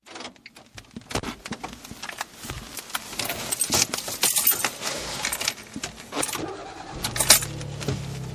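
A dense, irregular run of sharp metallic clicks and jingling rattles, with a low steady tone coming in about seven seconds in.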